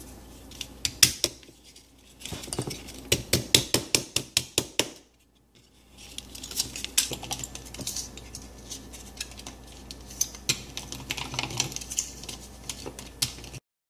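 Small hammers tapping thin aluminium sheet over a wooden form, shaping it into a cowling: quick metallic strikes about four a second, a short pause about five seconds in, then lighter, more irregular tapping.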